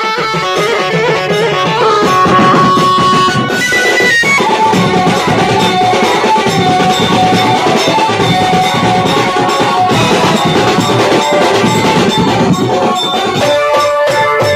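Live banjo-party band music: an electronic keyboard plays a sustained, reedy lead melody over a group of drummers beating snare-style drums, tom-toms and cymbals in a fast, dense rhythm. Loud throughout.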